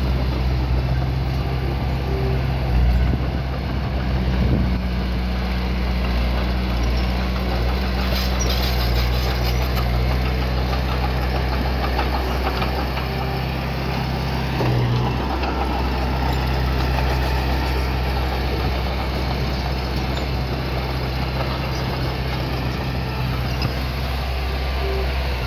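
Small bulldozer's diesel engine running steadily at a low, even pitch, with a few short clanks about a third of the way in.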